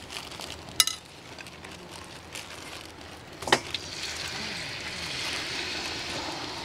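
Banana fritters in batter deep-frying in a pan of hot oil: a steady sizzle that grows louder from about four seconds in. Two sharp knocks, about a second in and near the middle.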